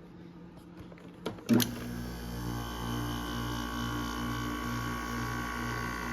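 2012 Frigidaire 5,000 BTU window air conditioner switching on: a few light clicks, then a loud click about one and a half seconds in, after which the unit runs with a steady, slightly pulsing hum and a whine that builds over the next second.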